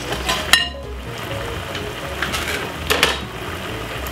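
Chicken stir-fry simmering in a frying pan, its sauce bubbling. Two sharp metallic clinks sound, one about half a second in with a brief ring and another near three seconds in.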